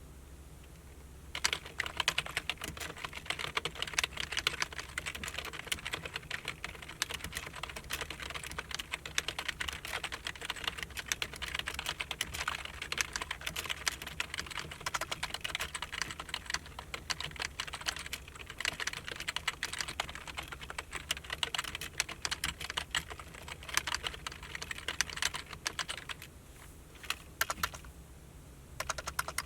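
Typing on a Micronics K630W wireless membrane keyboard: a fast, continuous run of keystrokes that starts about a second in, stops briefly near the end, then resumes.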